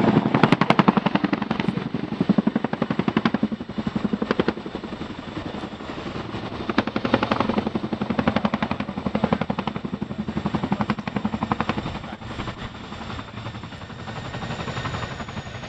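RAF CH-47 Chinook's tandem rotors beating with a loud, rapid blade slap as the helicopter hovers low and sets down. The beat swells and fades several times.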